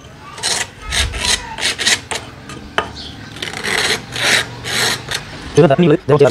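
A hacksaw blade scraped again and again across a small cut piece of AAC (aerated concrete) block, in dry rasping strokes, roughening its face into a pumice-like scrubbing bar. Near the end a short pitched sound, like a voice, cuts in.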